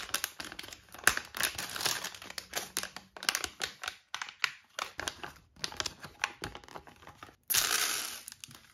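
Small plastic packet of mini building bricks crinkling in the hands as it is opened and emptied, a quick run of sharp crackles. Near the end comes a louder, longer rustle.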